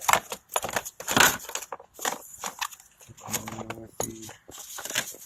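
Irregular clicks, knocks and scrapes of hard car parts being handled and fitted back into place in the engine bay.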